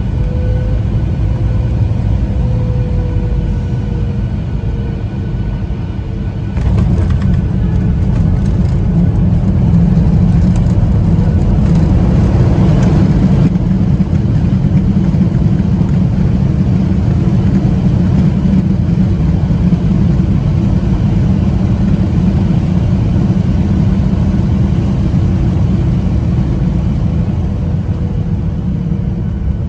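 Cabin noise of a Boeing 737-800 landing, heard from a seat over the wing: a steady low rumble until touchdown about six and a half seconds in, when the noise jumps and rattles. A louder rush follows for several seconds as the plane brakes on the runway, then it settles to a steady rumble as it rolls out.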